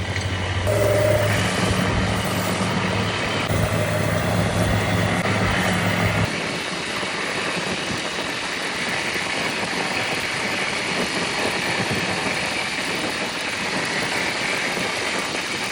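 A machine's motor running with a steady hum that drops out about six seconds in, leaving a steady hiss.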